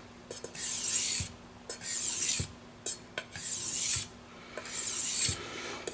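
Steel knife blade stroked across the wet 3000-grit side of a whetstone: a rasping scrape four times, about one stroke every second and a half, with light knocks as the blade turns between strokes.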